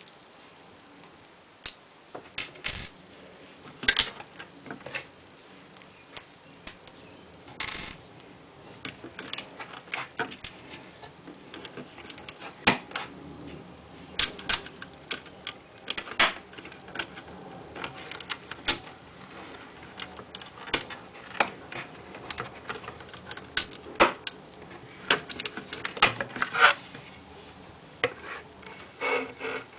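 Plastic LEGO bricks clicking and clattering as they are handled and fitted together: a run of irregular sharp clicks and light knocks.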